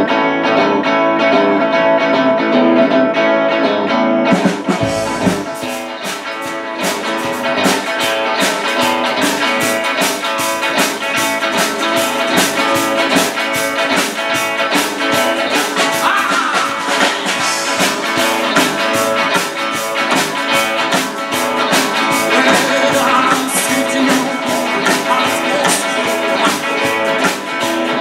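Live band playing with electric and acoustic guitars, drum kit and upright double bass. The first four seconds or so are guitar without drums, then the drums and full band come in with a steady beat.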